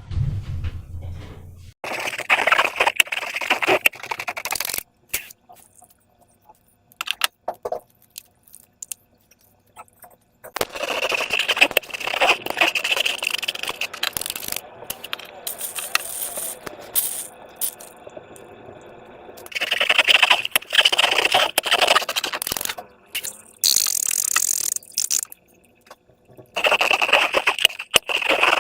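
Slime being squeezed and worked by hand: wet, crackly squishing with many small clicks, in several bursts of a few seconds each, separated by short pauses.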